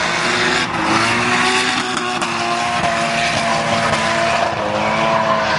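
Drift car sliding sideways through a corner: its engine holds a steady note under load while the spinning rear tyres squeal and smoke.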